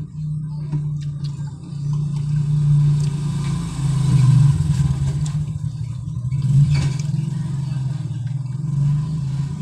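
A motor vehicle engine running steadily, swelling and easing a little in loudness.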